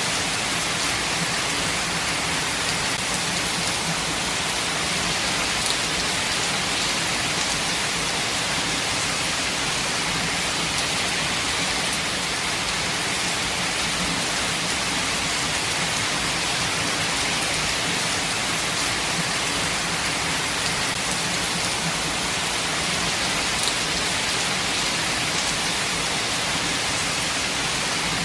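Steady heavy rain falling, an even hiss of rainfall with faint individual drop ticks.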